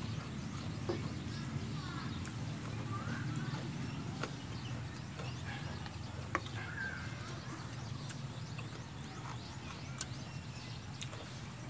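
Outdoor background: faint short bird chirps over a steady low hum and a steady high-pitched hiss, with a few soft clicks scattered through.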